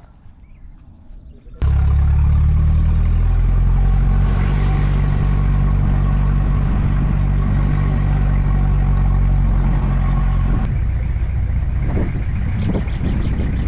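Vehicle engine running steadily under loud road and wind noise as it drives over a sandy dirt track, cutting in suddenly about a second and a half in. Near the end the engine tone weakens and the rough road noise carries on.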